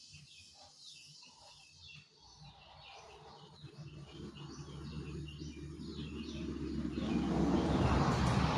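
Small birds chirping repeatedly in short, high notes. From about two seconds in, a rushing noise with a low hum swells and becomes the loudest sound near the end, like a vehicle approaching.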